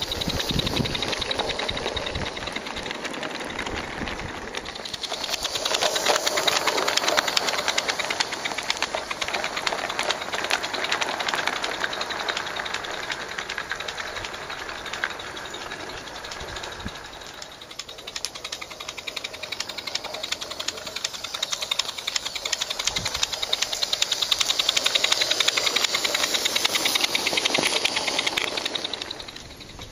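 Small live-steam garden-railway locomotive, a rebuilt Mamod SL1, working with rapid, even exhaust beats, along with hissing steam and the rattle of a train of small tipper wagons on the track. The sound swells twice as the train passes close and fades near the end.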